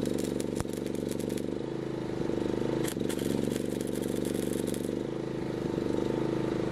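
Stick (arc) welding on a steel frame: the arc crackles and sizzles in two runs, one in the first second or so and a longer one from about three seconds in, stopping near five seconds. Underneath, a small engine runs steadily.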